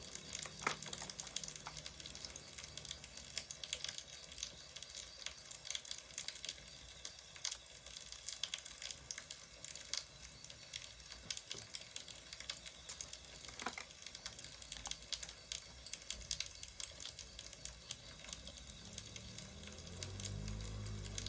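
Burning firewood crackling, a steady stream of small irregular crackles with an occasional sharper pop.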